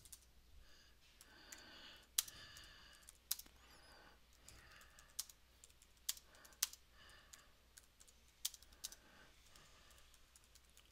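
Faint typing on a computer keyboard: irregular keystrokes as a sentence is typed, with a few louder key clicks standing out.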